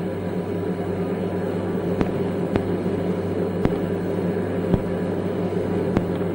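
Steady electrical hum with hiss and a few faint scattered clicks: the background noise of an old lecture recording.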